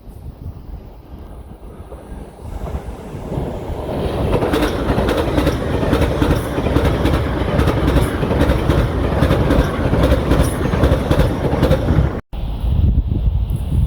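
A train running through the station, building up over the first few seconds into a loud rumble with rapid clickety-clack of wheels over rail joints. The sound drops out for an instant near the end, then carries on quieter.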